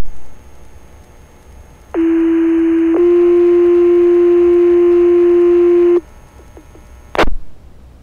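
Two-tone sequential fire-department page tone over the dispatch radio: a steady low tone for about a second, then a slightly higher tone held for about three seconds, the alert that sets off the firefighters' pagers. Short radio squelch clicks at the start and about a second before the end.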